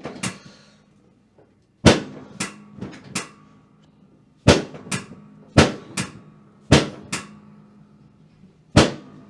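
Chiropractic drop table sections snapping down under the chiropractor's thrusts during a drop-technique adjustment: about a dozen sharp clacks, often in quick pairs.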